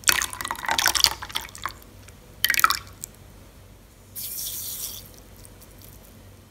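Melted butter poured in a stream into warm milk in a glass bowl, splashing for about a second and a half, with a short second splash a moment later. Near the end comes a soft, high hiss under a second long as dry yeast granules are tipped onto the liquid.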